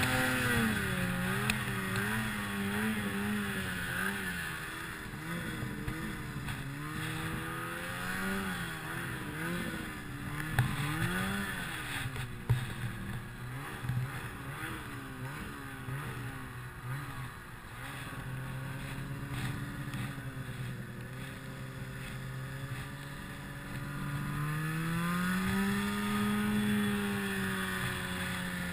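Tuned 2008 Ski-Doo Summit 800 two-stroke snowmobile engine working through deep powder, its pitch rising and falling constantly with the throttle, lower through the middle and climbing again near the end. A couple of sharp knocks near the middle.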